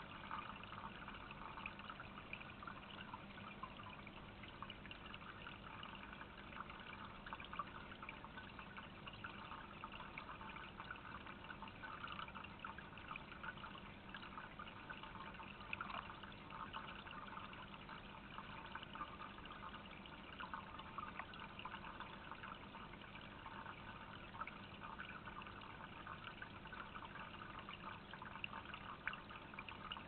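Small rock water feature trickling and dripping steadily into a shallow basin.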